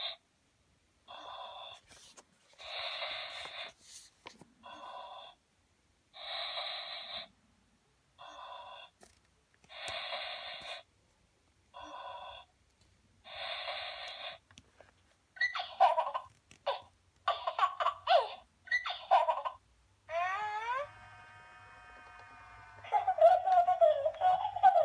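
My First Baby Annabel 'Time to Sleep' electronic baby doll playing recorded baby sounds through its small speaker. First comes a steady run of breaths, in and out, for about fifteen seconds. Then baby babbling and giggling, with one long rising coo held for a couple of seconds near the end.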